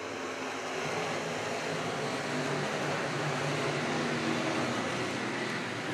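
Field of dirt-track modified race cars running around the oval, heard from a distance as a steady engine drone under a hiss. It swells a little in the middle and eases slightly near the end.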